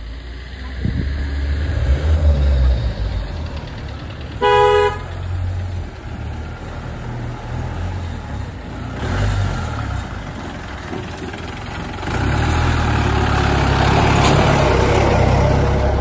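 A vehicle horn gives one short honk about four seconds in, over the low rumble of a motor vehicle. The rumble and a hiss grow louder for the last few seconds.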